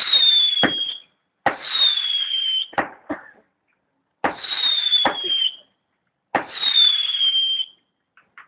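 Whistling fireworks going off one after another: four shots, each a sharp crack followed by a high whistle that slides slightly down in pitch for about a second, with a couple of extra pops between them.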